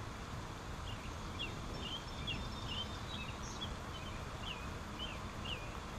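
A songbird calling in a run of short, high chirps, about two a second, over a steady low outdoor rumble.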